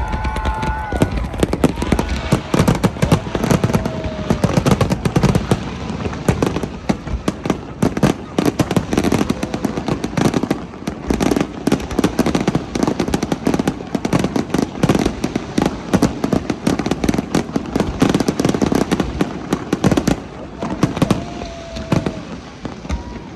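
Fireworks display going off: a dense, rapid run of bangs and crackles with hardly a pause, thinning slightly near the end.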